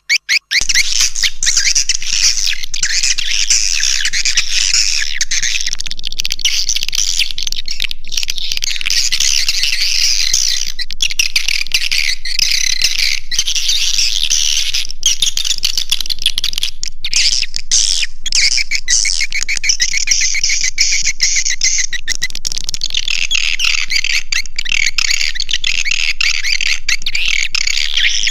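Swiftlet caller sound: a loud, dense, unbroken chorus of high swiftlet twittering, of the kind played from tweeters to lure swiftlets into a bird house. It begins about half a second in.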